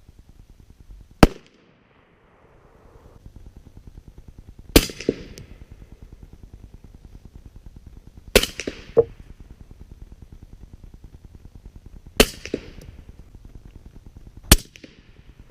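Five unsuppressed rifle shots from a .300 Blackout AR firing 208 grain Hornady A-MAX loads, spaced about three to four seconds apart. Three of the shots are followed a fraction of a second later by a fainter second crack.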